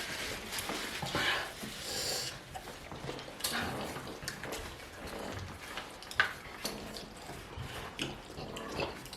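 Close-up eating sounds of spicy tilapia pepper soup with starch: irregular wet slurps, chewing and mouth noises, with sharp breaths against the pepper heat.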